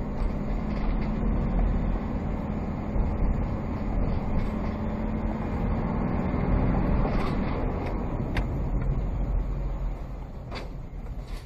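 Steady engine and road noise of a vehicle driving, recorded from inside its cab, with a low, even engine hum. The noise eases a little near the end, with a few short clicks.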